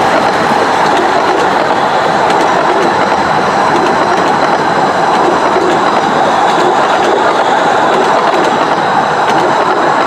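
Passenger carriages of a 15-inch-gauge miniature railway rolling past close by: a loud, steady rumble of wheels on the rails with scattered clicks as they run over the rail joints.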